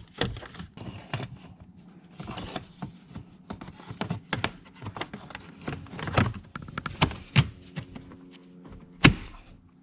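Plastic car interior trim panel being handled and positioned: a scattering of light plastic clicks, taps and knocks with a brief rustle, and one sharper knock near the end.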